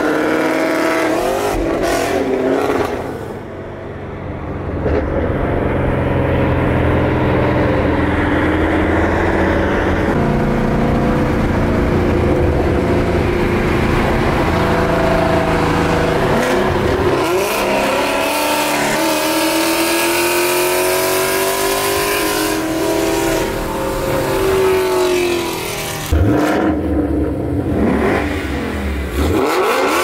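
Ford Mustang V8 engines with loud aftermarket exhaust accelerating hard through the gears, the pitch climbing and then dropping back at each shift, several times over.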